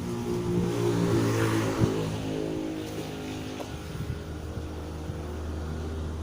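A motor hum that swells and climbs about a second in, then settles into a steady lower drone.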